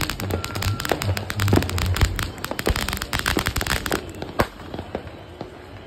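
Ground fountain firework spraying sparks with dense, rapid crackling. After about four seconds the crackling thins to scattered single pops.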